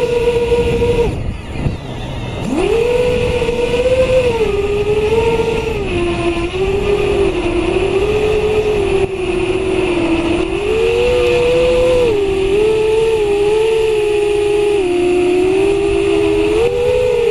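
Electric motors and propellers of a small drone whining, heard from on board, the pitch rising and falling with the throttle. About a second in the motors drop away almost to nothing, then spool back up a second and a half later.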